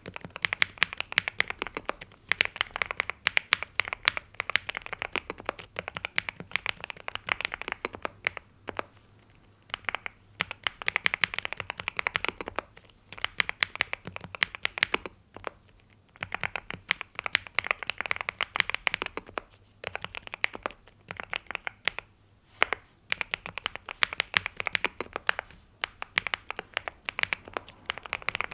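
NuPhy Gem80 mechanical keyboard with NuPhy Mint linear switches and double-shot PBT mSA keycaps being typed on: quick runs of keystrokes with a few brief pauses between them.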